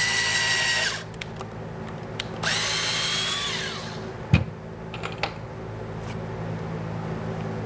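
Power drill running into wood in two short bursts, the motor whine winding down just under a second in, then spinning up again at about two and a half seconds and winding down a second later. A single sharp knock follows a little after four seconds, then a few light clicks.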